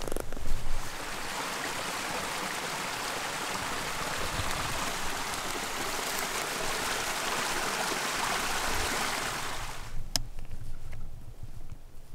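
Steady rushing of running water that cuts off suddenly about ten seconds in, followed by a single sharp click.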